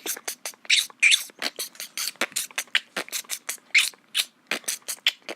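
Fast percussive music beat of crisp clicks and hissy hits, about five or six a second, with almost no bass.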